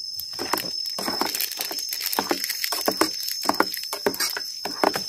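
Irregular quick taps and clicks, several a second, over the steady high chirring of crickets.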